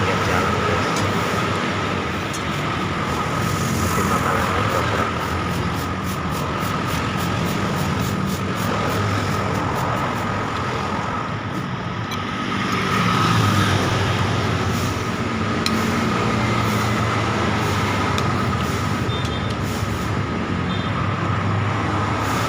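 Steady traffic noise from a busy main road, with the low hum of engines running past.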